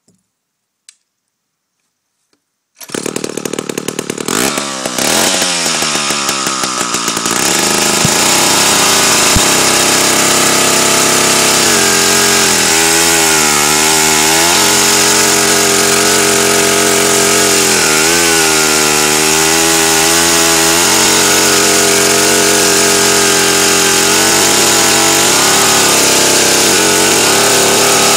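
David Bradley 360 two-stroke chainsaw engine starting about three seconds in. It runs unevenly for a few seconds, then settles into a steady high-speed run, and twice its pitch sags and picks back up.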